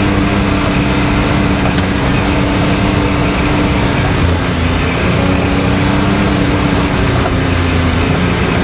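Can-Am Maverick X3 side-by-side running at a steady engine speed, a loud even drone with a rough rumble underneath.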